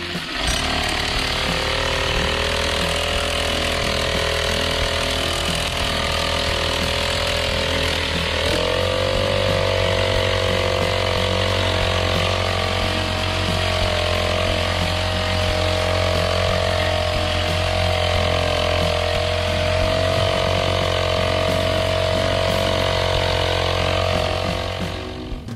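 Grass cutter (brush cutter) engine running steadily under load; its pitch rises about eight seconds in and then holds, and it stops abruptly near the end.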